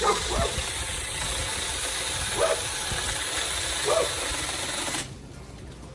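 Battery-powered Saker mini chainsaw running with its chain spinning, then stopping abruptly near the end as the trigger is let go.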